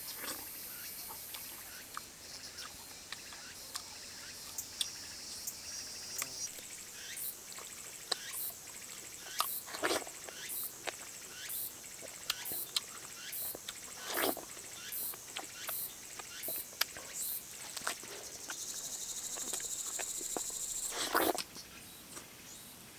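Insects calling: high steady buzzing whose pitch changes as different insects start and stop, and through the middle a regular high chirp about twice a second. Three louder short sounds that sweep from high to low stand out, about 10, 14 and 21 seconds in.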